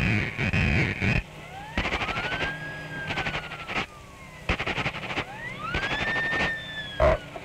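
A whistle sound effect swooping up and then slowly down in pitch, about four times, like a howling wind. Fast rattling percussion runs under it, and a short loud crash comes near the end. These are the storm effects of a 1929 cartoon soundtrack.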